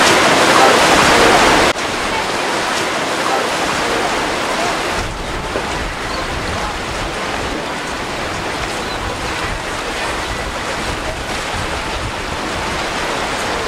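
Rough, choppy water rushing and breaking, with wind on the microphone. The sound drops suddenly a couple of seconds in, then runs on as a steady rush.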